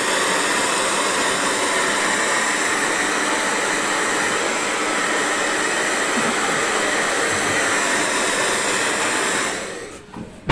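Hand-held hair dryer blowing on hair: a loud, steady rush of air and motor noise that fades away near the end.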